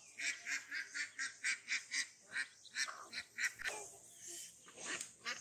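Domestic chicks peeping: a quick run of short, high peeps, about four a second, then more scattered calls, some falling in pitch.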